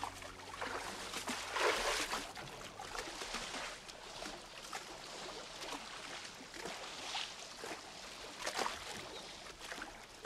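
River water lapping and trickling gently around a moored wooden rowboat, in soft irregular swells.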